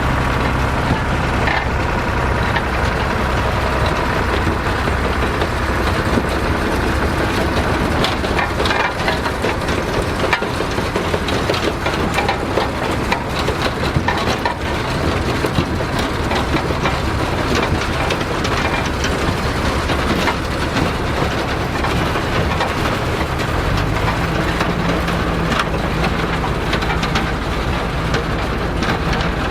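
Vintage tractor engine running under load, with a dense crunching, clattering noise of harvesting machinery working in the field. The engine note steps up in pitch about three-quarters of the way through.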